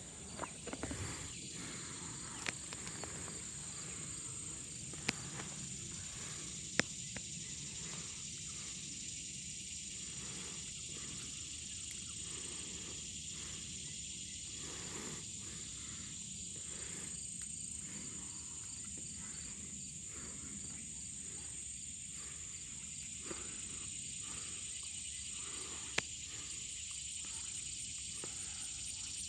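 Outdoor insect chorus, a steady high-pitched trilling of insects, with a few sharp clicks scattered through it.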